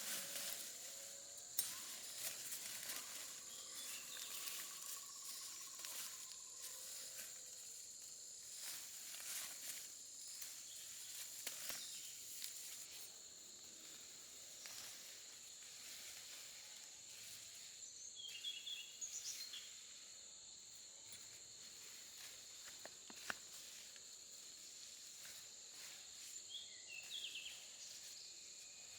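Faint rural outdoor ambience: insects droning steadily at a high pitch, with scattered light clicks and rustles. Short chirps come twice, about two-thirds of the way through and again near the end.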